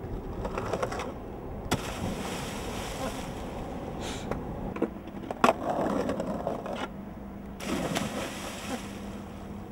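Skateboard rolling on a stone ledge with a few sharp knocks, then water splashing as the skater and board go into the water.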